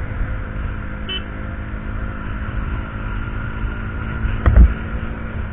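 Wind noise buffeting a motorcycle-mounted action camera's microphone at highway speed, over the steady drone of a KTM Duke 200's single-cylinder engine. A louder low buffet comes about four and a half seconds in.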